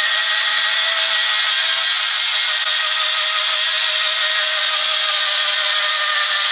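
Lefree 8-in-1 electric spin scrubber running on its high speed setting, its rotating pad scrubbing a soapy glass shower door: a steady, even motor whine.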